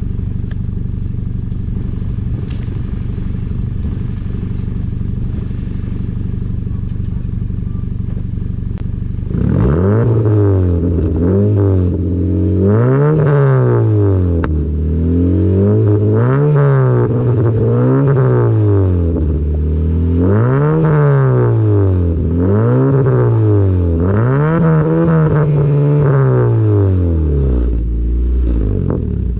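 2014 Honda Civic LXR's four-cylinder engine idling through an aftermarket Superedition exhaust with its electronic cutout valve open. About nine seconds in it is revved repeatedly, about six blips rising and falling, then it drops back to idle near the end. With the valve open the exhaust note is much deeper.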